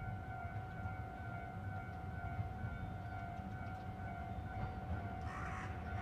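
Railway level-crossing warning alarm ringing steadily on one high tone over a low rumble; about five seconds in, bursts of noise from the approaching train come in.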